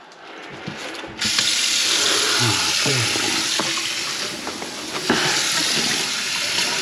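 A few clicks, then about a second in a kitchen faucet is turned on and water runs steadily into the sink.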